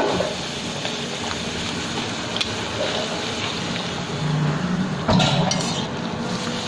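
Steady sizzle of a luchi deep-frying in hot oil in a karai. It grows briefly louder about five seconds in.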